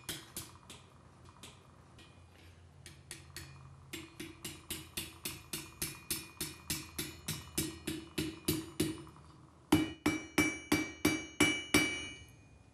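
Blacksmith's hammer striking red-hot quarter-inch steel bar on an anvil in quick, even blows, about four a second, rolling the thin end over into a scroll. The blows ease off briefly about two seconds in, then run steadily. In the last few seconds they grow loudest and the anvil rings after each one.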